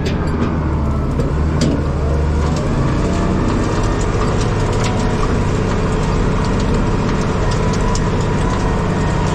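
International Harvester 1586 tractor's six-cylinder diesel engine running steadily, with sharp rattles and clicks over it; the deepest part of the engine note drops away about two and a half seconds in.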